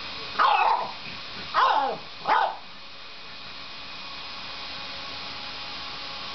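French bulldog barking three times in quick succession, each bark short and falling in pitch, over a steady background hum.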